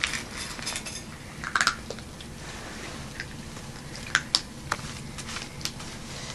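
Boston Terrier puppy eating from a stainless steel bowl: irregular sharp clinks and clicks against the metal bowl, with a cluster of louder clinks about four seconds in.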